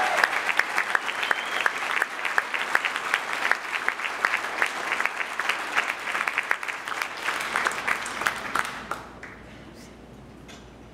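Congregation applauding the just-married couple, dense clapping that dies away about nine seconds in.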